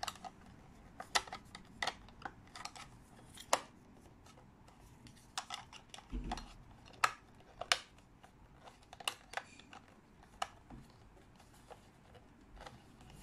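Plastic clicks and taps of a portable radio's battery-compartment cover being pressed and worked into place, irregular sharp clicking with a duller knock about six seconds in. The cover is hard to get to latch.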